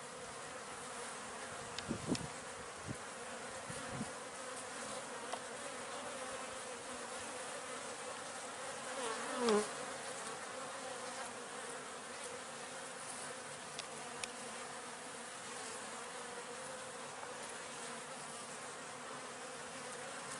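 Honeybees buzzing steadily around an open hive as workers gather on a newly placed queen cage. About nine seconds in, a louder buzz sweeps down in pitch as a bee passes close.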